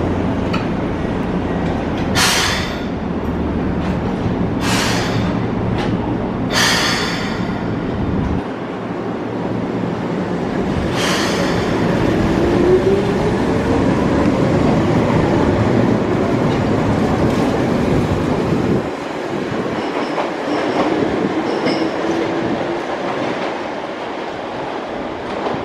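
Keihan 600-series train pulling out of a station: several short hisses of air in the first seven seconds, then a whine that rises as the train gathers speed along with the running noise of its wheels on the rails. The low rumble drops away about nineteen seconds in as the train moves off.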